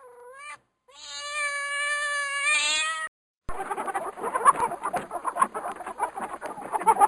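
Domestic cat meowing: a short meow, then a long drawn-out meow that grows louder. About halfway through it cuts to a busy clatter of many overlapping animal calls.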